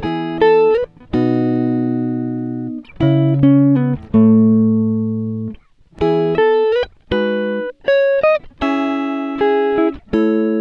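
Background music: a guitar playing alone, picking single notes and short chords that ring out and fade, with brief pauses between phrases.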